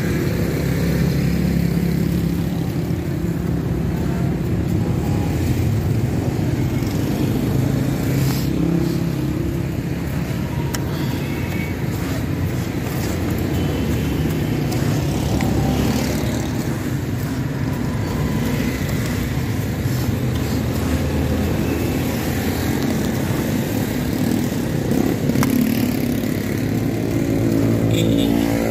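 Steady low rumble of motor traffic from the street, with a few faint scrapes and clicks as a metal scraper stirs corn cobs through hot sand in an iron roasting pan.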